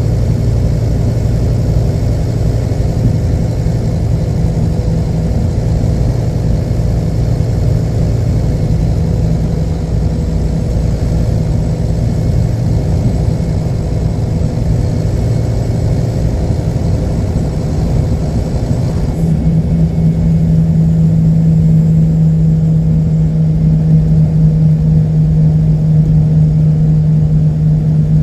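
Scania DC09 five-cylinder diesel engine running at a steady speed; about two-thirds of the way through its speed steps up and holds there, a little louder.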